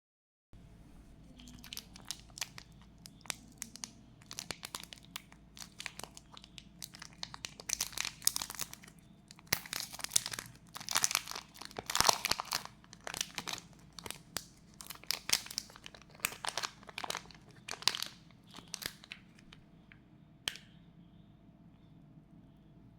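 Packaging being torn open and crinkled by hand: an irregular run of crackles and rustles, loudest about halfway through, that stops about twenty seconds in.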